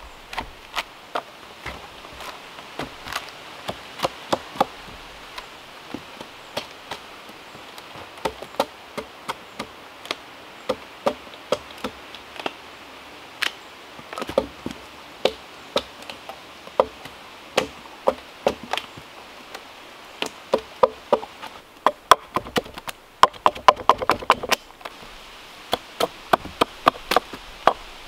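Chopping tool blows biting into wood, irregular strikes about one to two a second that come in quick clusters near the end.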